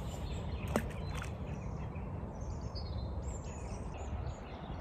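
Outdoor riverbank ambience: a steady low rumble with faint bird chirps in the second half, and two sharp clicks about a second in.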